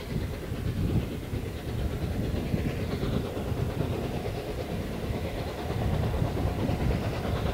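Steam locomotive hauling a passenger train along the line, its exhaust beats mixed with the rumble of the train on the track.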